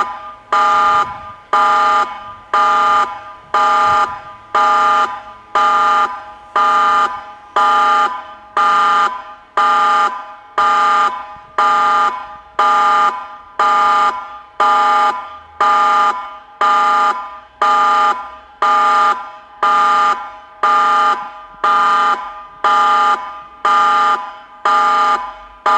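Meerkat 4 siren sounding the tsunami warning signal: a steady tone pulsed on and off about once a second.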